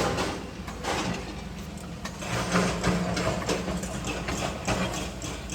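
A heavy engine running steadily, with frequent irregular knocks and clatter over it.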